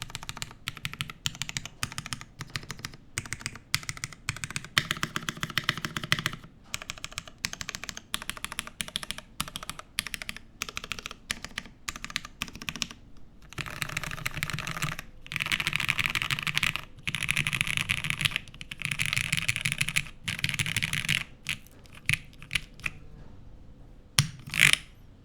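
Typing on a top-mount custom mechanical keyboard with lubed Cherry Nixie switches, a polycarbonate plate and GMK keycaps: a steady stream of key strikes, turning into fast, near-continuous typing in the second half, then slowing to a few separate strikes, one louder near the end.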